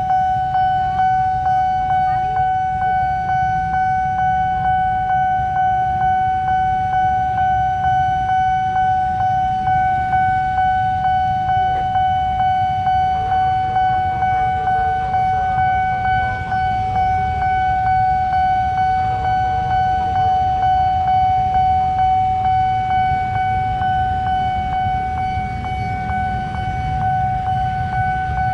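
Railway level-crossing warning alarm sounding while the barriers are down: a single steady electronic tone pulsing about twice a second, warning that a train is approaching. A low rumble runs underneath.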